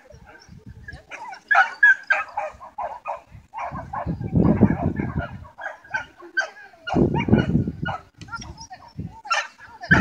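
A dog barking repeatedly in short, quick yaps while running an agility course. Low rumbling noise comes in twice, about four and seven seconds in.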